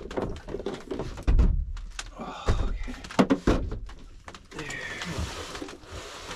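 Clunks and thumps of camping gear being handled and set down beside a cooler in a pickup bed under a camper shell: a handful of knocks, the heaviest a little over a second in.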